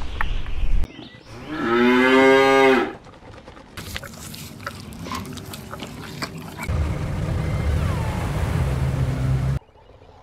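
A cow mooing once, a single call of about a second and a half, starting under two seconds in. A loud low rumble cuts off abruptly before it, and a steady low rumbling noise follows.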